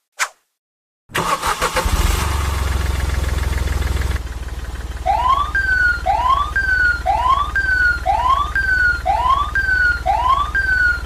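A motor starts with a rough burst and settles into a steady low rumble. About five seconds in, a siren-like whoop joins it: a rising swoop and then a short falling tone, repeating about once a second.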